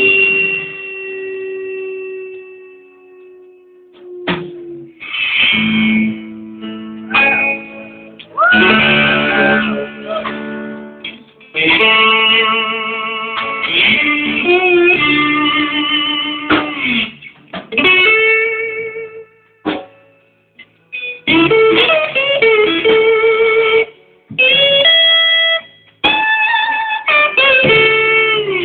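Electric blues guitar solo in a slow blues, played in phrases of sustained, bent notes with vibrato, with short pauses between the phrases.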